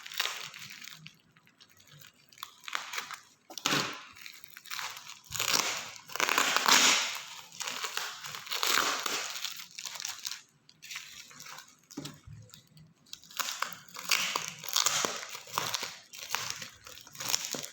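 Parcel packaging crinkling, crumpling and tearing in irregular bursts as it is handled and opened by hand.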